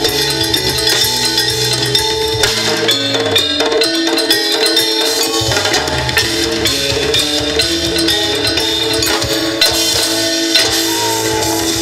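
Live reggae band playing an instrumental passage: electric guitar, bass guitar, drum kit and hand drums. The bass drops out briefly about four seconds in.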